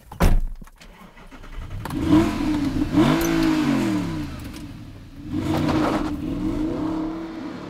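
A car door shuts with a thump, then the first-generation Audi R8's 4.2-litre V8 starts and is revved twice, each time rising and falling in pitch, before settling into a steady run.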